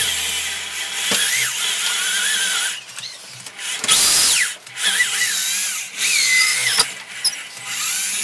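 A power tool working wood, most likely a drill, running in several stretches of a second or two each with short pauses between. Its pitch wavers up and down as it cuts.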